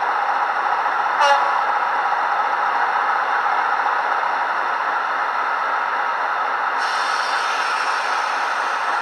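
Sound-fitted OO-gauge Class 56 model playing a Class 56 diesel engine idling, from its DCC sound decoder through a small megabass speaker, with nothing in the deep bass. A short pitched blip comes about a second in, and from about seven seconds in a hiss joins the steady idle.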